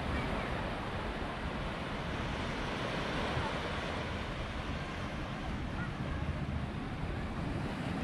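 Fairly big ocean waves breaking and surf washing up a sandy beach: a steady rushing noise.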